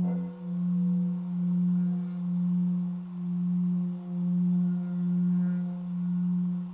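Tibetan singing bowl resting on a person's chest for a sound massage, struck once with a felt-covered mallet at the start. It then rings on in a steady low hum with fainter higher overtones, swelling and fading about once a second.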